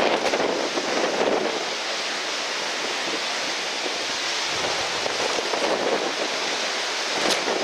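Strong wind and surf: a steady rushing noise.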